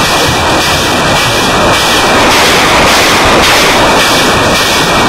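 BM-21 Grad truck-mounted multiple rocket launcher firing a salvo: rockets leaving the launch tubes in quick succession as a loud, continuous rushing noise that pulses several times a second.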